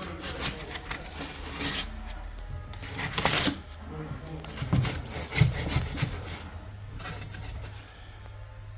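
Rubbing and scraping on foam insulation board in several irregular strokes, with a few dull knocks in the middle.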